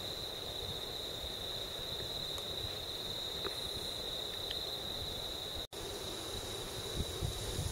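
Steady high-pitched insect drone over a low rumble; it breaks off for an instant about three-quarters through and comes back fainter.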